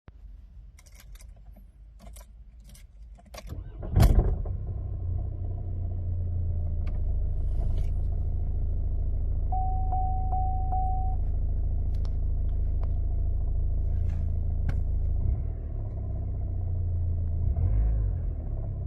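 Opel Astra J 1.6 CDTI four-cylinder diesel starting after a few clicks, with a loud metal-to-metal clatter as it fires about four seconds in, then settling to a steady idle with a low rattle. The owner hears this start noise only since a new Valeo dual-mass flywheel and clutch were fitted, and suspects the new flywheel. A short beep sounds about ten seconds in.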